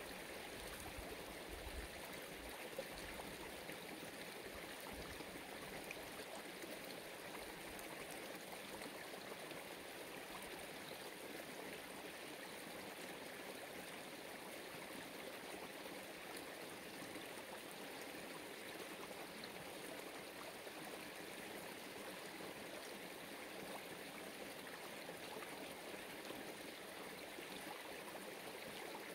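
Steady rushing of water flowing in a stream, even and unbroken throughout.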